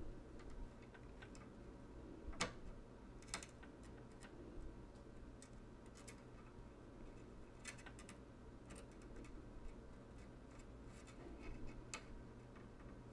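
Faint, irregular small clicks and taps of soldering work on a circuit board, as a soldering iron and copper wire touch the board, over a low steady hum. The sharpest clicks come about two and a half and three and a half seconds in.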